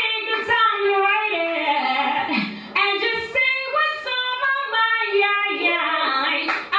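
A woman singing solo into a microphone, holding notes that slide in pitch, with a brief break for breath about two and a half seconds in.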